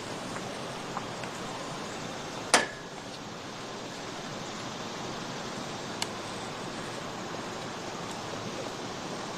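Steady outdoor hiss-like ambience with no music or speech. One sharp, loud click sounds about two and a half seconds in, and a fainter click about six seconds in.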